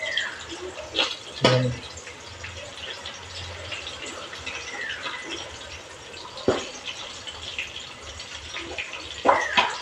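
Fish frying in oil in a shallow pan: a steady sizzle with crackling. A few knocks and clicks sound through it, and a metal spatula clicks against the pan near the end.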